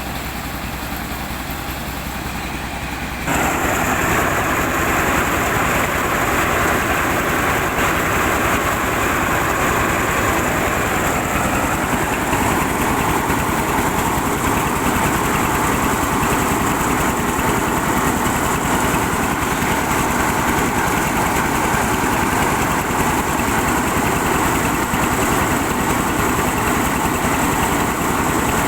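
Old car engine powering a rice milling machine, running steadily. About three seconds in, the sound turns suddenly louder and noisier and then holds steady.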